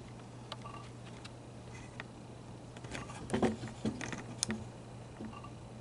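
Faint clicks, knocks and rustles of a handheld camera being repositioned, busiest about three to four and a half seconds in, over a steady low hum.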